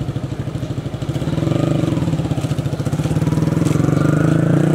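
Sport motorcycle engine running with a fast, even pulse, getting louder about a second in.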